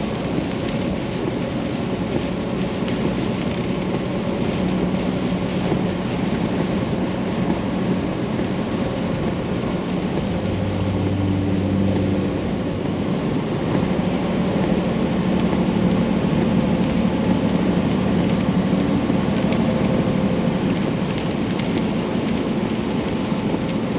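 Heavy rain and wind noise on a moving vehicle, with a low steady hum of engine and road noise underneath.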